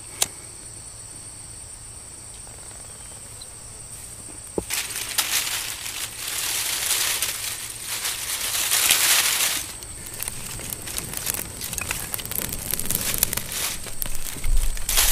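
Dry leaves and grass tinder crumpled and rustled by hand as a campfire is laid, loudest for about five seconds in the middle, followed by lighter crackling and snapping of twigs. A steady high cricket trill runs underneath and is heard alone for the first few seconds.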